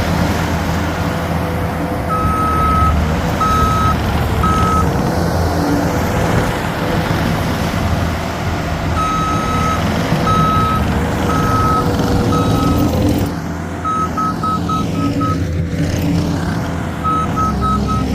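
New Holland C232 compact track loader's diesel engine running under work, with a steady whine, while its backup alarm beeps in runs as it reverses. Near the end the beeps come quicker and shorter.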